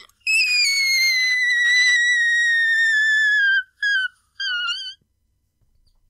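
A man's shrill falsetto screech, his 'pterodactyl mating sound', done as an imitation of a whistle-register 'tea kettle' note. One long high note slides slowly downward for about three seconds, then come two short, wavering squeals.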